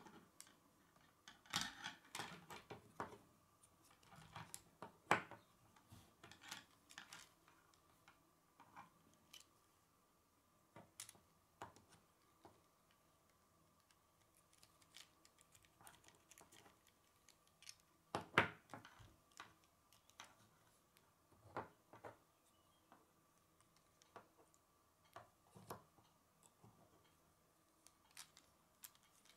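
K'nex plastic rods and connectors clicking and snapping together as pieces are pushed into place by hand: faint scattered clicks, with a few sharper snaps near the start, about five seconds in and past the middle.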